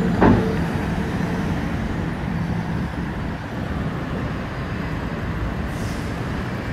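City street traffic noise: cars driving through an intersection on a wide avenue, a steady rumble with one brief louder sound near the start.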